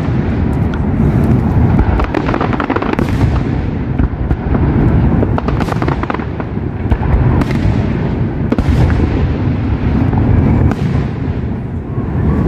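A fireworks display going off continuously: a dense rumble of booming shell bursts with many sharp bangs and crackles overlapping throughout.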